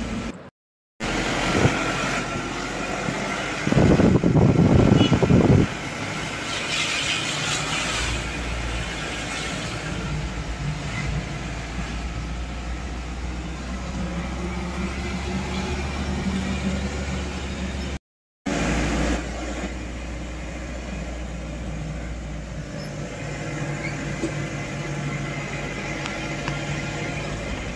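Car driving along a road, heard from inside: a steady low engine and tyre rumble, with a louder rough rumble for about a second and a half around four seconds in. The sound drops out briefly twice.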